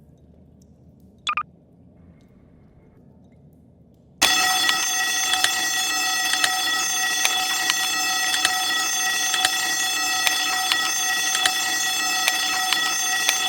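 Door alarm going off: a brief sharp chirp about a second in, then a few seconds later a loud, steady, shrill alarm tone starts abruptly and keeps sounding.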